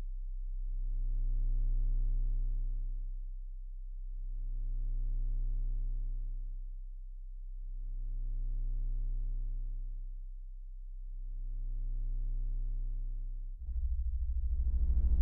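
Low synthesized drone with many overtones, swelling and fading in slow waves about every three and a half seconds. Near the end it changes to a louder, buzzier low tone.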